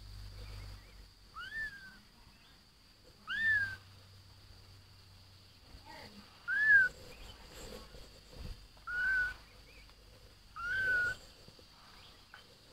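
Young kittens mewing: five short, high-pitched mews, each rising then falling in pitch, about every two seconds.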